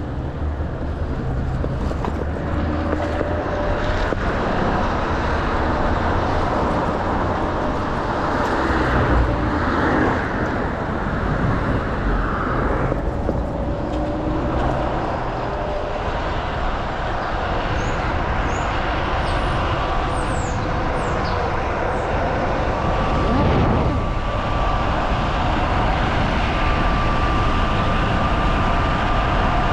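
Steady rush of wind and road noise from a Kaabo Wolf King GT Pro electric scooter being ridden, with a faint steady whine.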